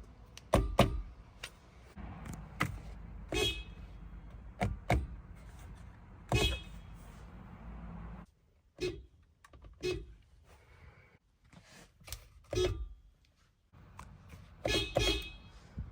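Toyota RAV4 Prime's horn, with the vehicle switched off, tapped in a series of short honks, some in quick pairs. Short clicks fall between the honks.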